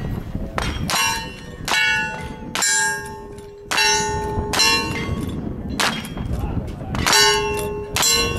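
Gunshots at steel targets: about nine sharp cracks at uneven intervals, each followed by the clang and ring of a struck steel plate.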